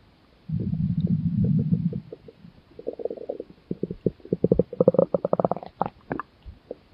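Stomach growling sound effect: a low rumble lasting about a second and a half, then a fast run of gurgling pulses that climbs a little in pitch before breaking up into a few scattered gurgles.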